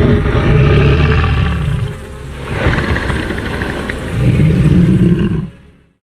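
Film Tyrannosaurus rex roar sound effect: a deep, rasping roar in two long surges with a brief dip between, fading out near the end.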